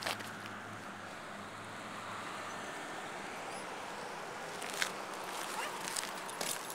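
Footsteps on a gravel path, a few sharp steps in the second half growing more frequent toward the end, over a steady outdoor background hiss.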